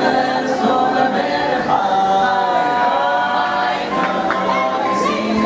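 Barbershop quartet singing a cappella in close harmony, the voices holding sustained chords.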